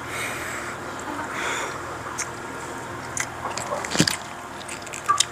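Close-up eating sounds: a man biting and chewing a mouthful of steamed king crab leg meat. Then come a few sharp cracks of crab shell being pulled apart by hand, the loudest about four seconds in.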